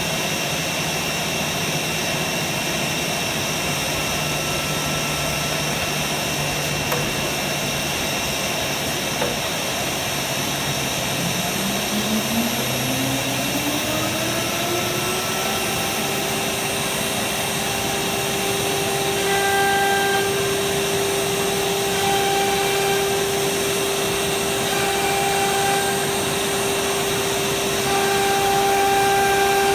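CNC router spindle spinning up partway through: a rising whine over about four seconds that levels off into a steady high whine. Later, shorter on-off tones come and go as the machine moves, over a steady rushing noise.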